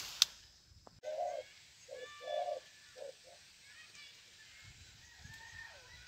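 Spotted dove cooing: a short run of low coo notes about a second in, lasting about two seconds. A sharp click comes just before it.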